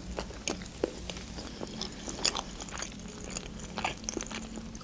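Close-miked chewing of a mouthful of sushi roll, lips closed: soft wet smacks and small clicks coming at irregular intervals.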